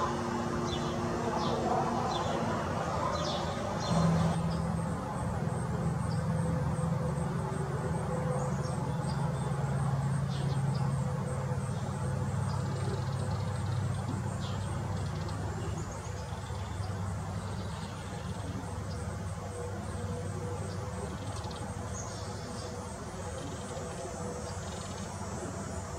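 Outdoor ambience: small birds chirping now and then over a steady low hum.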